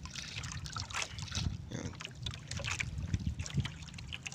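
Small waves lapping and splashing irregularly against the side of a small outrigger boat's hull, over a low rumble.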